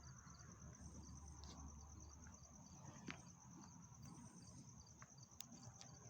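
Faint, steady, high-pitched insect chirring that pulses rapidly, with a few soft ticks.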